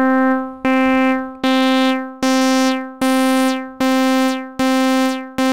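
Logic Pro ES1 software synthesizer playing repeated middle-C notes, about seven notes evenly spaced a little under a second apart, each held briefly then fading. Every note comes out equally loud, but the tone grows brighter as the note velocity rises, because velocity is opening the filter cutoff.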